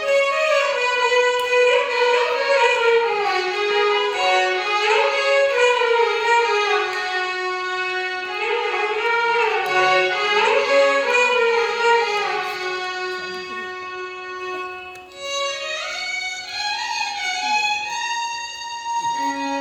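Violin ensemble playing a Carnatic melody together, the notes sliding and bending between pitches over a held lower note. The music eases briefly about fifteen seconds in, then a new phrase rises in pitch.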